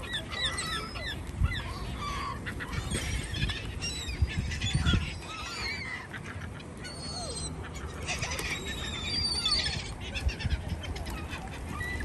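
A large flock of gulls calling over one another: many short, high cries and squeals, some rising and falling in pitch, in a continuous chorus.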